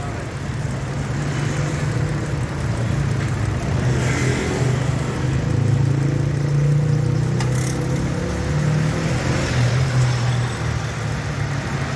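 Mitsubishi Mirage's small three-cylinder engine idling with a steady low hum. A faint hiss rises briefly about four seconds in, and there is a single click a little after seven seconds.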